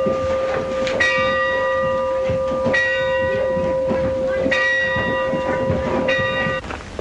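A school bell ringing to call pupils to class: struck four times at even intervals of a little under two seconds, each stroke ringing on into the next.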